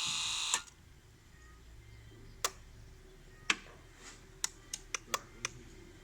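A whirring small electric motor cuts off with a click about half a second in. Then come sharp dry clicks, two single ones and a quick run of five near the end, with no starter cranking: relay clicking as the key is tried on a freshly overhauled engine that will not turn over.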